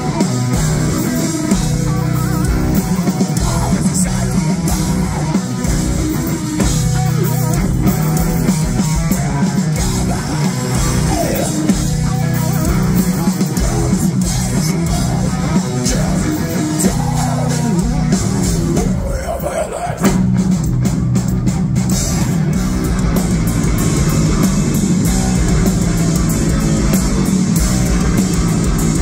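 Heavy metal band playing live, with distorted electric guitars, bass and drums. There is a short break just before twenty seconds in, and then the full band comes back in.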